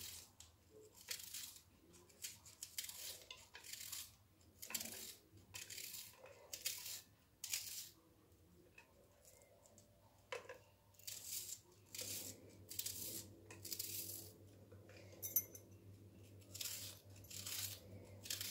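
Knife slicing an onion thin: a run of short cuts, the blade clicking against a steel plate about one and a half times a second, with a short pause about eight seconds in.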